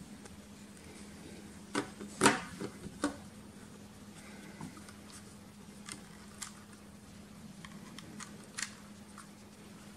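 Plastic clicks and handling noise from a DJI Mavic Air remote controller and its micro-USB lead being plugged in and turned over in the hands: a quick cluster of sharp clicks about two seconds in, then a few lighter clicks spread out later.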